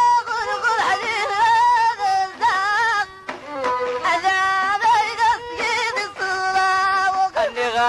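Traditional Middle Atlas Amazigh music: a melody with heavy vibrato and ornamentation, played in phrases with short breaks.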